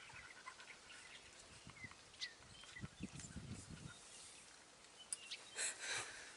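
Faint outdoor quiet with soft rustling as puppies move against their mother in the grass, a few faint high chirps, and two brief breathy bursts near the end.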